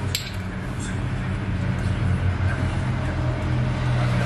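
A steady low mechanical hum, with a single sharp click just after the start.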